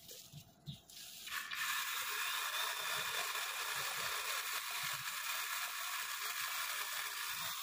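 Battery-powered mini chainsaw switching on about a second in and running steadily, its chain cutting into tree branches.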